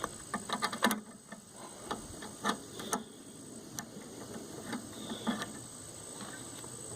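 Hand ratchet wrench clicking while turning bolts by hand: a quick run of clicks in the first second, then scattered single clicks and light taps.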